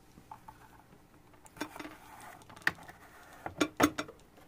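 A few light clicks and knocks, scattered and getting more frequent toward the end, the loudest a little under a second before it ends. Under them is a faint steady hum from the nano tank's pump.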